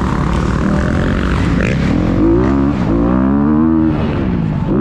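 Dirt bike engine heard from on board, revving hard as the rider accelerates and shifts, its pitch climbing and dropping away several times.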